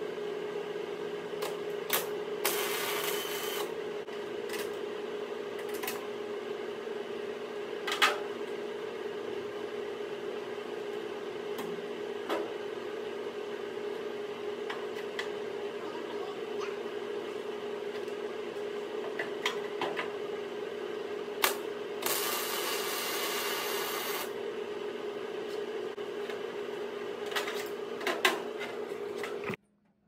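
Steady electrical hum from a Hobart welder, with two short bursts of welding arc crackle, about two and a half seconds in and again about twenty-two seconds in, and scattered clicks and knocks of work on steel.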